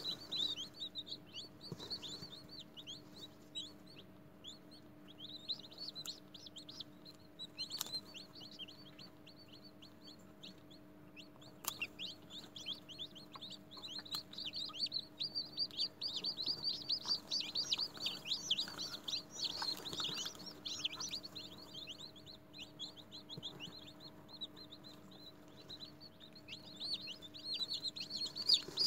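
Chicken chicks in a hatching batch cheeping: many short, high peeps, thin at first and coming thick and fast from about halfway on and again near the end. A faint steady hum runs underneath.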